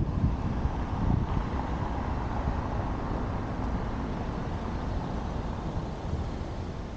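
Wind buffeting a roof-mounted camera's microphone on a slowly moving car, over a low rumble of tyres and traffic. There are a few stronger gusts about a second in, then a steady rush.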